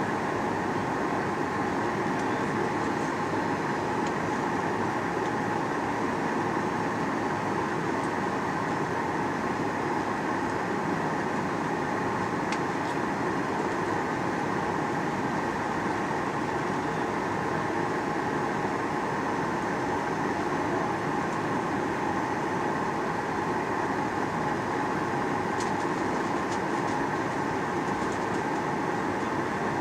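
Steady cabin drone of a Boeing 737-800 in flight, heard from inside the cabin: engine and airflow noise from its CFM56 turbofans and the airframe, holding an even level.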